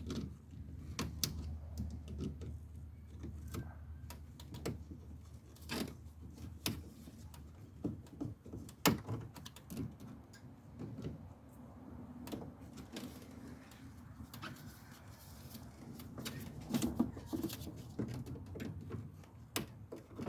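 Scattered clicks, knocks and rattles of hands and tools working spring hose clamps and coolant hoses off a plastic coolant filler neck housing, over a low steady hum.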